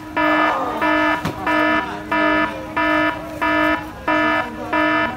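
An electronic alarm sounding a loud buzzing beep over and over, about three beeps every two seconds, each beep about half a second long.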